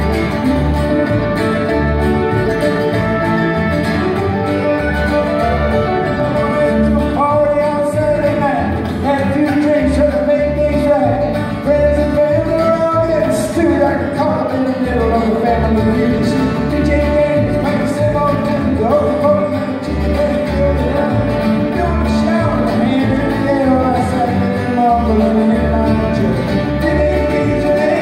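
Live acoustic string band playing a country/bluegrass song: acoustic guitar, mandolin, fiddle and upright bass, with a steady walking bass pulse and a man singing lead.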